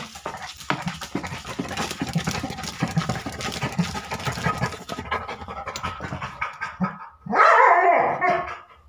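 Labrador retriever panting rapidly for several seconds, then giving one loud, drawn-out bark that falls in pitch about seven seconds in.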